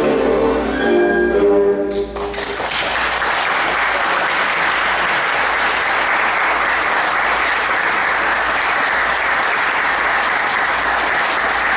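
Recorded music ends on its final notes about two seconds in, then an audience applauds steadily.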